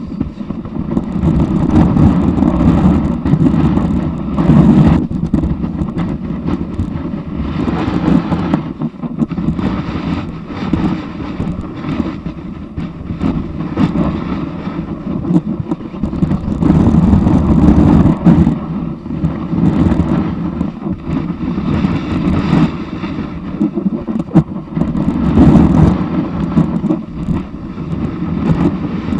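Snowboard sliding and carving over packed snow: a continuous rough scraping rush that swells and fades every few seconds with the turns, heard through a camera fixed to the board's nose, with wind on the microphone.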